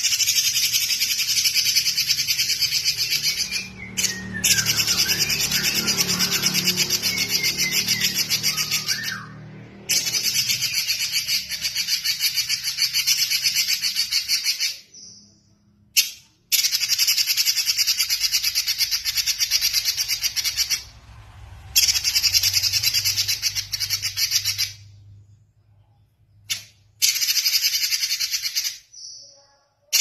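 Red-billed leiothrix singing in long phrases of very fast, high trills, each held for several seconds and broken by short pauses. Fainter sliding whistled notes run beneath the trills about four to nine seconds in.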